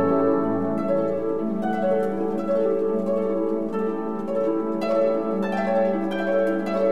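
Background music: plucked string notes, one after another, over held lower notes.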